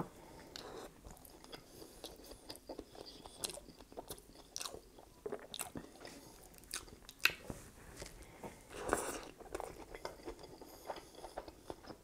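Close-miked eating of a McDonald's Big Mac: a bite at the start, then chewing with many small wet clicks and smacks, and a louder stretch about nine seconds in.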